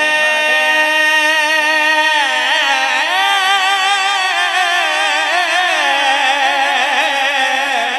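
A man's voice singing a naat, drawing out one long ornamented note with no clear words: held steady for about two seconds, then wavering up and down in pitch.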